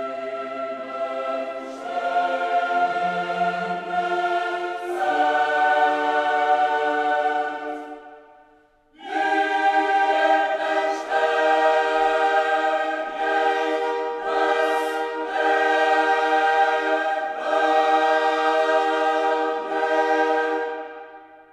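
Background music of a choir singing slow, sustained chords in two long phrases, with a brief break about eight seconds in. It fades out near the end.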